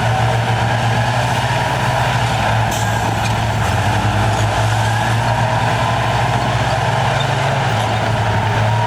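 Heavy diesel engine of earthmoving machinery running steadily under work, with a fainter whine that slowly rises in pitch.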